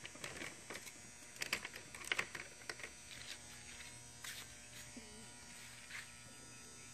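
Faint steady electrical buzz and hum, with scattered soft rustles and ticks of handling.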